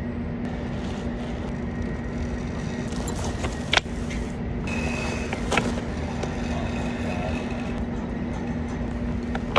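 Steady low hum of an idling engine, with the rustle of a heavy tarp being dragged out across a flatbed load and two sharp clicks, about four and six seconds in.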